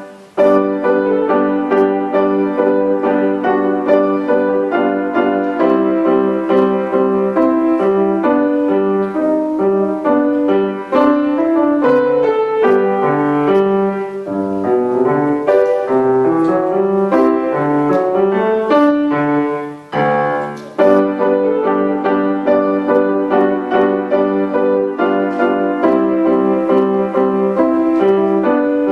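Solo grand piano played, a continuous run of notes. About twenty seconds in the playing briefly drops away, then comes back with a loud chord.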